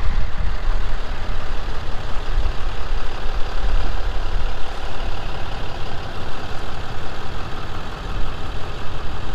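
A truck engine running steadily, a dense sound strongest in the low end that goes on without a break.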